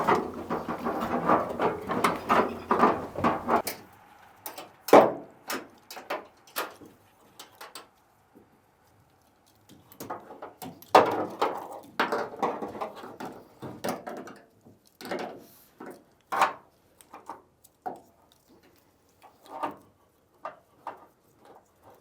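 Irregular clicks, knocks and clatter of hands working on parts in a van's cab, with two short busier stretches, one at the start and one about ten seconds in.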